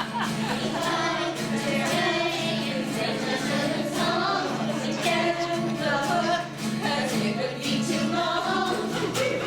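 A small group of women singing together, with a steady low tone underneath that cuts out near the end.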